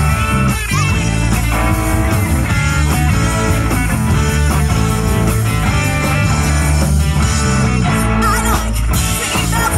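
Live rock band playing a song on electric guitars and a drum kit.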